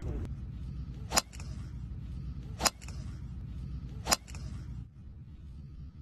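Golf club heads striking balls off the tee: three sharp cracks about a second and a half apart, over a steady low rumble.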